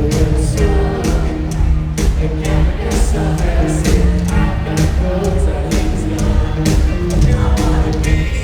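Live rock band playing loud through an arena PA, with sung vocals over guitars and a steady drum beat.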